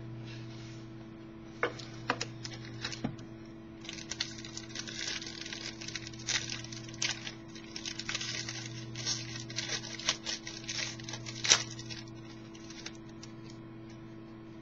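A box of football trading cards being opened: a few clicks, then several seconds of crinkling and tearing of the packaging, with one sharp click near the end. A steady low hum runs underneath.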